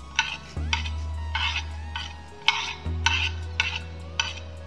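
A spoon scraping coriander seeds off a plate into a dry frying pan, in a string of short rattling strokes about two a second.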